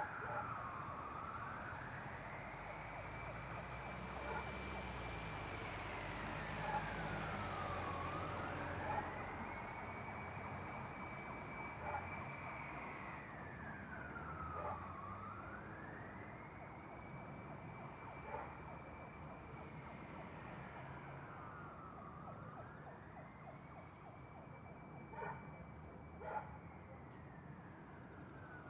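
Distant emergency-vehicle siren on a slow wail: it rises, holds its high note for a few seconds, then falls again, about every seven seconds, over a steady traffic rumble. A louder rush of road noise passes about five to eight seconds in, and a few short sharp sounds come near the end.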